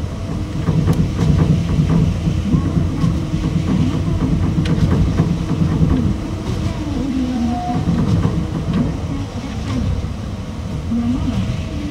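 Osaka Monorail 2000 series straddle-type monorail running: a steady low rumble of its rubber tyres on the concrete guideway, with the traction motor drive's whine wandering up and down in pitch and a few short knocks.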